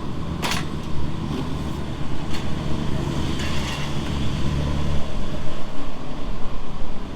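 A vehicle engine running nearby: a low, steady hum that builds about a second in and fades after about five seconds. A sharp click comes about half a second in.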